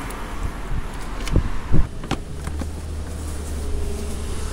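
Handling sounds at a self-service petrol pump: two dull thumps about a second and a half in, a sharp click just after two seconds, then a steady low hum sets in.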